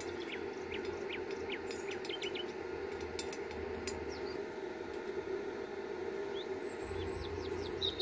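Small birds chirping with short quick notes, with a longer high call near the end, over a steady low hum.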